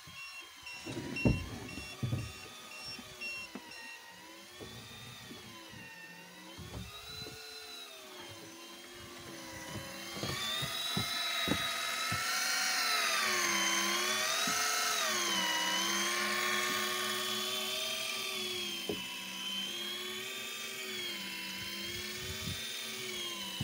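Daiwa Tanacom 1000 electric fishing reel's motor whining as it winds in line, its pitch rising and falling every second or two; it grows louder about ten seconds in. A few knocks in the first few seconds.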